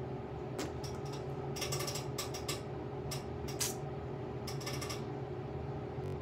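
Handling noise from the recording phone being adjusted by hand: several short bursts of rapid clicking and creaking, over a steady low hum.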